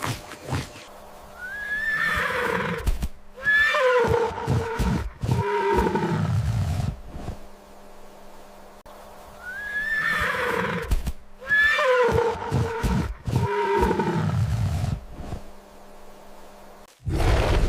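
A horse whinnying, the same call heard twice about eight seconds apart, each a quavering call with several parts.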